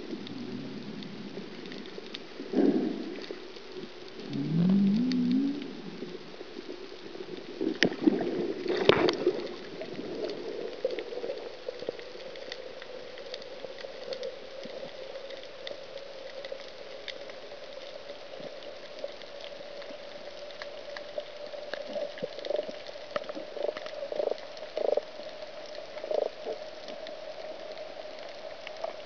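Underwater sound heard on a coral reef through a camera housing: scattered faint clicks and crackles, a few louder knocks around two to nine seconds in, and a short rising squeak about four seconds in. From about ten seconds in, a steady hum slowly climbs in pitch, with a few more knocks near the end.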